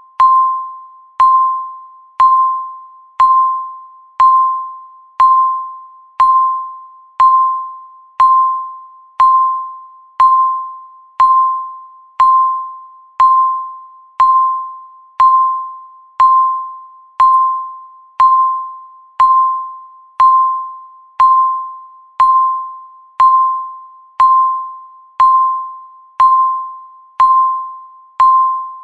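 Countdown timer beeping once a second: a short electronic beep at a single pitch, each struck sharply and fading away before the next, evenly spaced.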